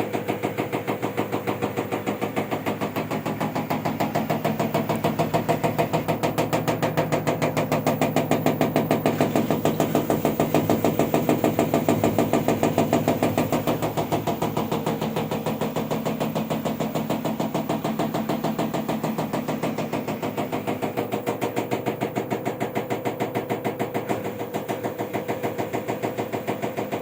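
LG washing machine on its spin cycle, with a fast, even knocking in time with the drum. The knock is the drain hose, pushed by one of the shock absorbers, striking the machine's cabinet.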